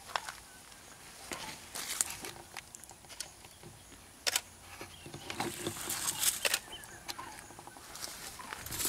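Irregular rustling with sharp snaps and crackles of dry vegetation, growing busier from about halfway through.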